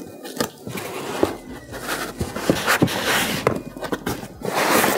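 Foam packing and cardboard rustling and scraping as packing is pulled out of a cardboard shipping box, with scattered small knocks.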